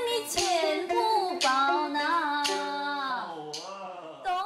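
A woman singing a Hakka mountain song (shange) in a bright, gliding voice, over a plucked lute, with several sharp percussive clicks in the first half.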